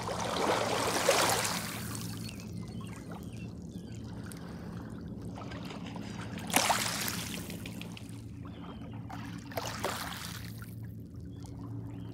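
Small lake waves lapping and washing over a pebble shore, in surges: a long wash at the start, another about six and a half seconds in and a smaller one near ten seconds. A faint steady low hum lies underneath.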